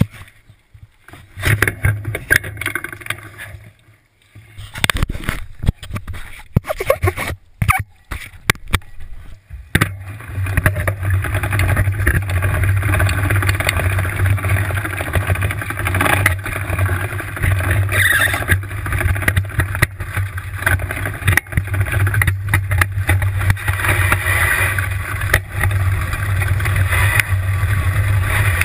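Tricycle riding over a muddy, bumpy path, heard from a camera mounted low on the frame. About the first ten seconds are irregular knocks and rattles; then a steady low rumble of the rolling ride takes over, with frequent clatters from bumps.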